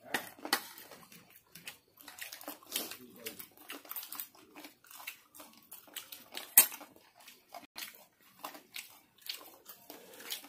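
Close-miked chewing of fried chicken and potato chop: a steady run of small, irregular wet clicks and crunches, with one sharp click about two-thirds of the way through.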